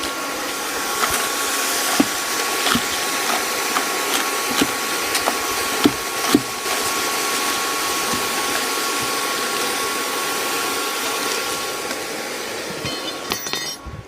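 Hair dryer blowing air into a charcoal furnace: a steady rush of air with a thin, even whine, cutting off near the end. Scattered sharp knocks and clicks over it, from a steel poker prodding the aluminium cans and charcoal in the fire.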